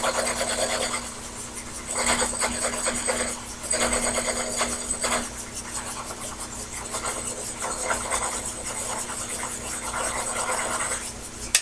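Sherline mini lathe turning a workpiece between centers under power feed: the cutting tool scrapes on the work over a steady motor hum, the cut growing louder and quieter in stretches. The cut is uneven because the work is not yet fully round, with a flat spot still left. A sharp click near the end.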